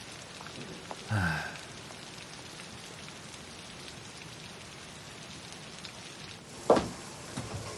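Steady rain-like hiss throughout. About a second in there is a short, low, falling vocal sound, and near the end a single sharp knock.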